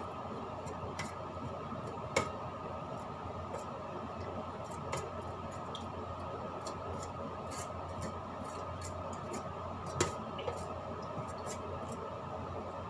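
Light, scattered clicks and taps as fingers work at the rim of a large cooking pot, with a sharper click about two seconds in and another near ten seconds, over a steady background hum.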